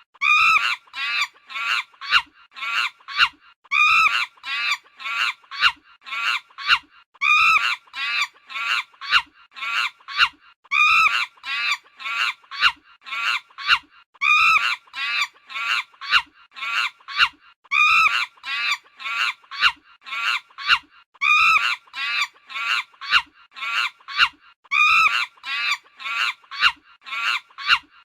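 Chicken clucking: a fast, unbroken run of short calls, several a second, with a louder call about every three and a half seconds.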